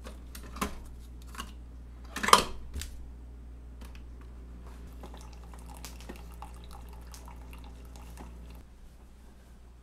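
Keurig single-serve coffee maker being loaded and started: a few plastic clicks, the loudest a sharp snap about two seconds in as the pod goes in and the lid is shut. The machine then brews with a low hum and a fine trickle of coffee running into the mug.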